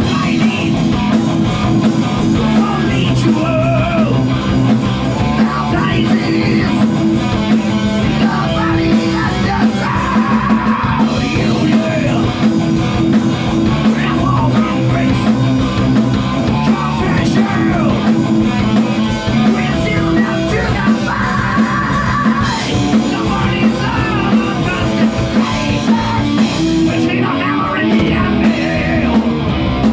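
Loud rock or heavy metal music: a full band with drums, guitars and singing, running without a break.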